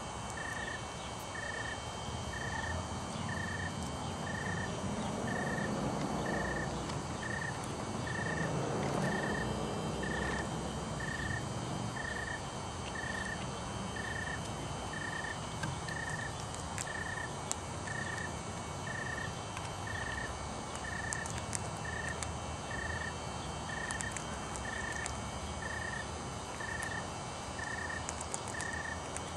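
Steady outdoor background noise with a short, high chirp at one pitch repeating evenly about once a second. A few faint clicks come in the second half.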